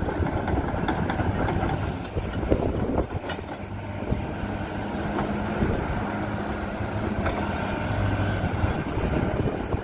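Kobelco SK210LC hydraulic excavator running under operation: its diesel engine holds steady revs while the machine swings and works, with scattered metallic clanks and squeaks from the steel-tracked undercarriage and linkage.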